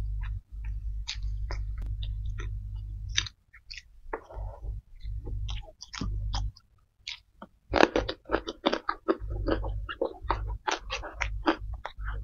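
Close-miked chewing with wet mouth clicks and smacks as a person eats a rice meal. The chewing gets louder and denser about eight seconds in.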